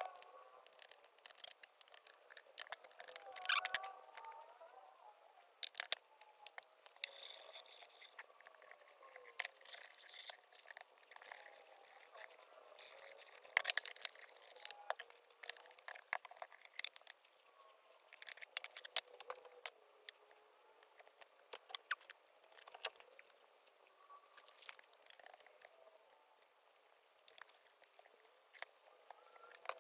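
Irregular sharp taps, clicks and short scrapes from hand work on a small sheet-metal toolbox, a few of them louder.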